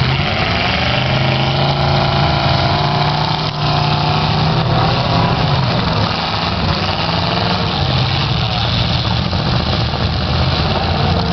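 Engines of several demolition derby cars running together, mostly idling, with some rising and falling revs, in a loud, steady din.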